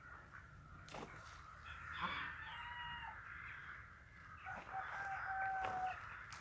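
A rooster crowing twice, each crow a long held call, the second starting about two and a half seconds after the first.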